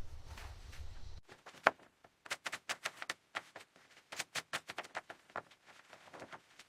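A low rumble cuts off about a second in, followed by a string of sharp, irregular taps or clicks, about three or four a second.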